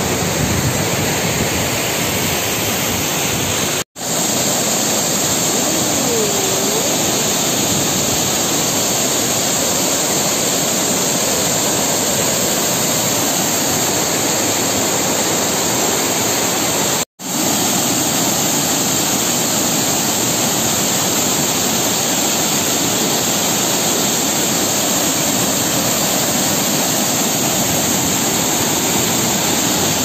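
Waterfall and rocky cascades: a loud, steady rush of falling and tumbling water, cut off to silence for an instant twice, about 4 and 17 seconds in.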